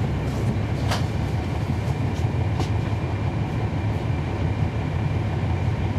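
Cummins ISL9 inline-six diesel engine of a 2011 NABI 40-foot transit bus running, heard from the rear seats inside the cabin as a steady low drone. A few short sharp rattles come in the first three seconds.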